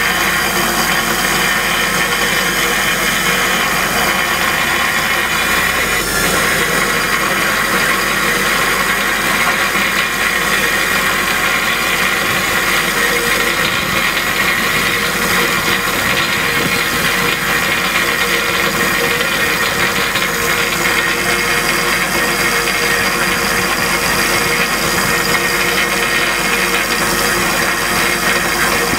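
Large grinder running steadily at constant speed, a continuous machine whine with no change in pitch or level.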